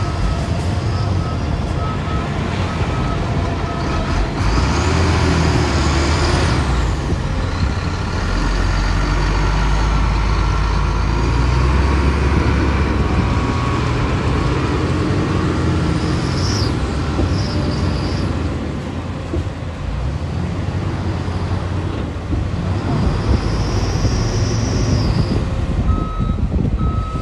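Diesel engines of heavy earthmoving machinery running under load, with a reversing alarm beeping in the first couple of seconds and again near the end. High squeals rise and fall three times over the engine noise.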